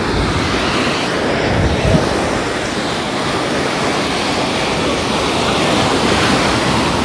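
Sea surf breaking and washing up onto a sandy beach: a steady rush of waves.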